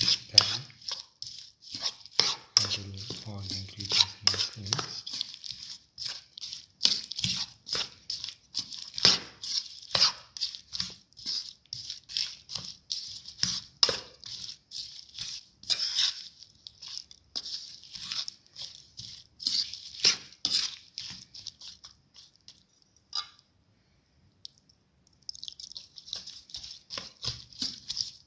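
A spoon stirring a thick okra and chickpea-flour batter in a bowl: quick, irregular scrapes, clicks and wet squelches of the spoon against the bowl. There is a short pause about three quarters of the way through, and the stirring starts again near the end.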